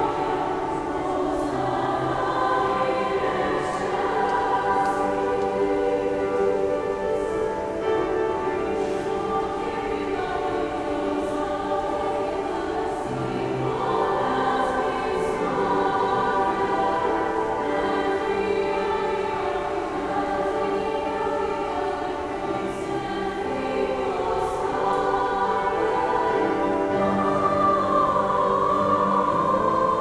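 A choir of teenage girls singing, with long held notes.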